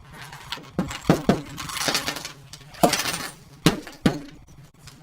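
Broken glass and plastic pieces of a smashed Etch A Sketch clinking and knocking as its contents are dumped out, about six sharp clinks with a hissing rush of the aluminium powder and fine beads sliding out in between.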